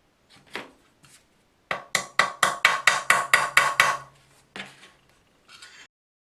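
Restored Bernina sewing machine run briefly, its needle mechanism clacking about four to five times a second over a low motor hum for about two seconds, with a few single clicks before and after.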